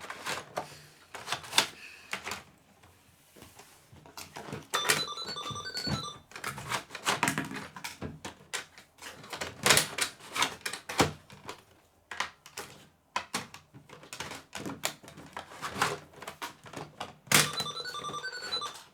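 Plastic toy cash register being handled: many sharp clicks and knocks of its keys and parts, with two short electronic beeping tunes from the toy, about five seconds in and again near the end.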